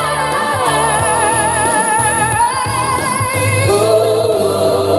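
A song with a sustained, wavering sung vocal over a steady bass line: a wordless vocal run with heavy vibrato.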